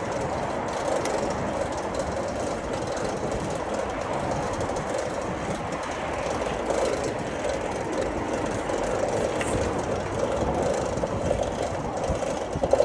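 Steady rumbling and rattling of a moving vehicle, unbroken throughout.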